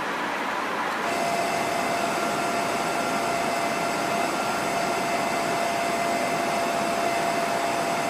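Jet aircraft in flight: a steady rushing noise with a steady high whine over it that sets in at a cut about a second in.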